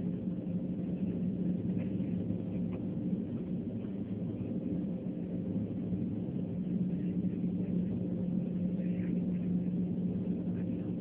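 Steady low droning hum of a jet airliner heard from inside its cabin, with a few steady low tones running under it.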